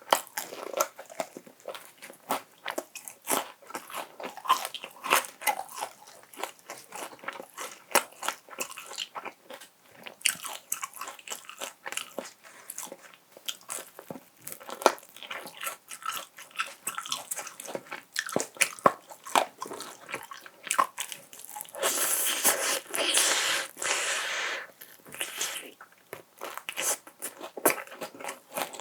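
Close-miked biting and crunching of crispy Kyochon Honey Combo fried chicken, with many sharp crunches and chewing. A little past the twenty-second mark a denser, steady noise lasts about three seconds.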